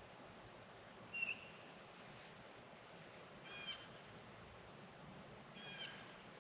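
Faint bird calls from across the water: a short high chirp about a second in, then two rougher calls a couple of seconds apart.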